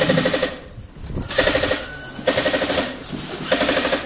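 Airsoft guns firing fully automatic, in four short rapid-fire bursts of about half a second each.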